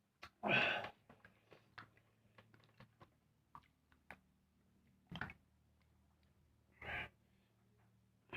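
Mukbang eating sounds: soft chewing with many small wet mouth clicks, and three louder short breathy bursts, about half a second in, about five seconds in and about seven seconds in.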